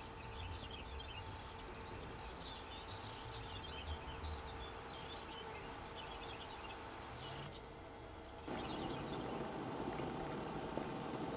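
Faint birdsong chirping over a low steady hum; about eight and a half seconds in it cuts to the louder rushing noise of a low-power electric kettle close to the boil, giving off steam.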